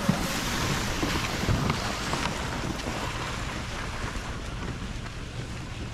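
Electric sled train dragging its towed plastic sleds over dry grass and crusted snow as it pulls away, a rushing scrape that slowly grows fainter. Wind buffets the microphone throughout.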